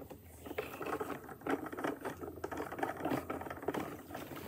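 Rapid, irregular clicking and rattling of a wooden toy crane's plastic spool being turned by hand to reel in its string.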